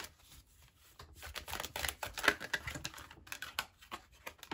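Tarot cards being shuffled by hand, a rapid run of papery clicks and snaps that is thickest between about one and three seconds in, then cards laid down on a wooden table near the end.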